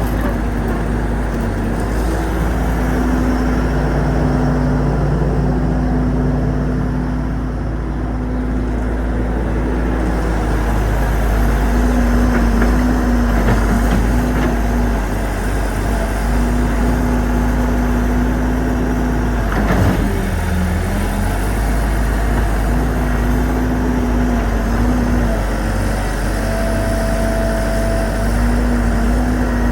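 Excavator's diesel engine running steadily, its drone dipping and returning now and then. A single sharp clank is heard about 20 seconds in.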